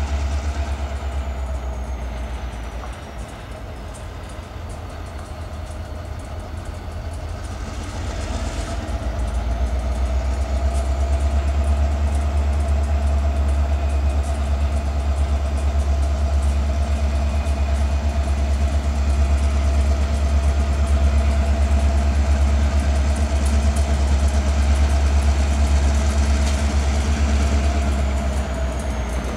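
Diesel freight locomotives running as they approach slowly, a deep steady engine rumble. It dips a little, then swells about eight to ten seconds in and stays loud.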